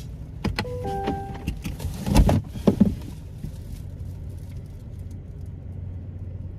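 Inside a car with the engine idling as a steady low hum. In the first three seconds there are knocks and rustling as things are handled, with a few short beeping tones about a second in.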